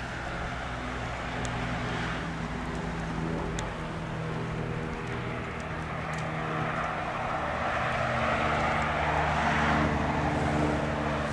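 A motor engine drones steadily as a vehicle passes at a distance, growing louder toward its closest point and easing off near the end.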